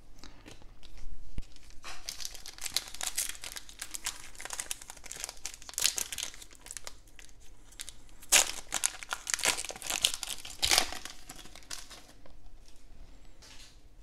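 Foil wrapper of a Donruss football card pack being torn open and crinkled by hand: a dense crackling that starts about two seconds in and dies down near the end.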